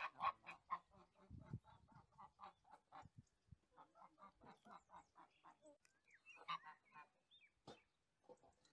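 Domestic geese honking faintly in a fast run of short calls, about four a second, with a louder burst of calls about six and a half seconds in.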